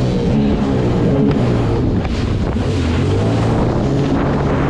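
Jet ski engine running at speed, with water spray rushing off the hull and wind buffeting the microphone. The engine note sinks about halfway through, then climbs back.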